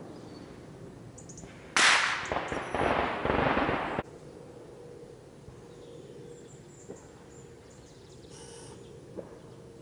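A turning-target mechanism swinging targets on a range frame. A loud burst of rushing noise with a few sharp cracks starts about two seconds in and cuts off abruptly two seconds later, followed by two faint clicks.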